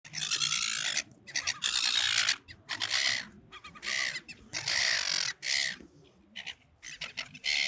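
Silver gulls calling repeatedly: a string of harsh calls, each under a second long, coming one after another with short gaps, growing sparser near the end.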